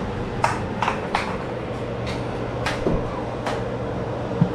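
A steady low hum with about five short, sharp clicks and knocks spread through it.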